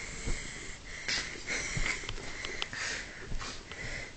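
Irregular bursts of rustling and scuffling as a kitten wrestles a plush toy on a fabric bedspread, over a faint, steady high-pitched tone.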